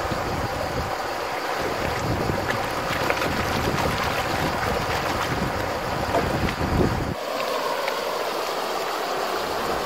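Water sloshing and splashing as a plastic gold pan is swirled and dipped in shallow river water, over the steady rush of the flowing river. Wind buffets the microphone until it stops abruptly about seven seconds in.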